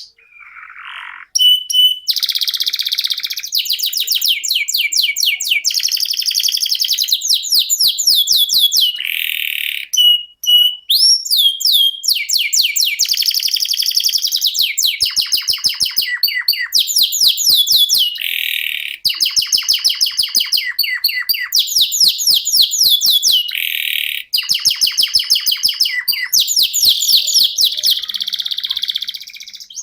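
Domestic canary singing a long, continuous song: run after run of rapid trills, each phrase a second or more long, strung together with only brief breaks and a few short gliding whistles between them.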